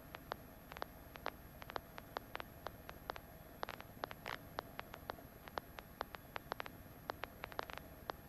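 Faint hiss of a helicopter's intercom and radio audio feed, broken by irregular sharp clicks and crackles, several a second, some in quick clusters.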